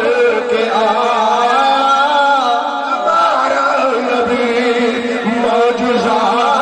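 A man chanting a devotional verse in Urdu/Punjabi in a drawn-out, melodic style through a microphone and loudspeaker, holding long notes.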